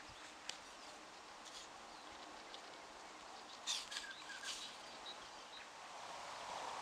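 Quiet riverbank ambience with a few faint, short bird chirps, most of them bunched together past the middle. A soft, steady rushing noise grows louder near the end.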